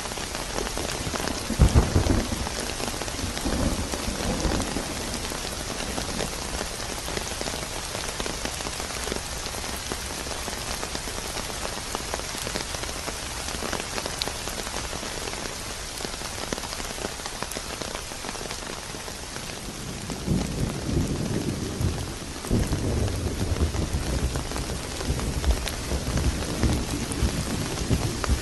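Thunderstorm: steady rain falling throughout, with a sharp thunderclap about two seconds in that rolls off into rumbling, and long low rumbles of thunder again in the last third.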